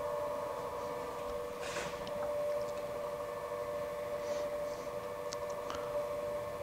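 Milling machine's power table feed running, driving the lead screw and the universal dividing head's gear train: a steady whine with a few faint ticks.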